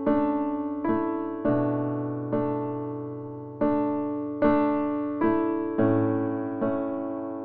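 Slow background piano music: single notes and chords struck roughly once a second, each ringing and fading before the next, with a low bass note now and then.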